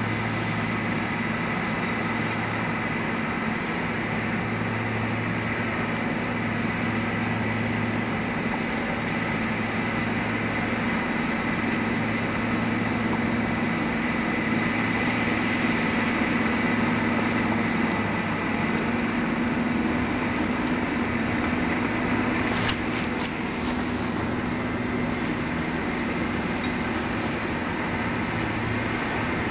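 Case crawler bulldozer's diesel engine running steadily under work, with a steady high whine over the engine note. A few sharp metallic clanks come close together about two-thirds of the way through.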